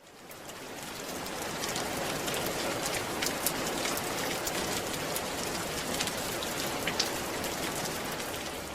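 Steady patter of rain, a dense hiss with scattered sharper drop ticks, swelling in over the first second or two and fading out toward the end.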